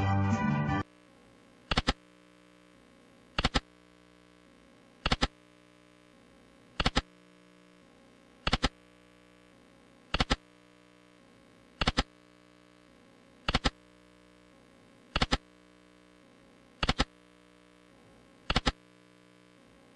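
Video slot machine game sounds. A short win jingle ends just after the start. Then comes a brief double click about every 1.7 seconds, one for each spin of the reels, with near silence between.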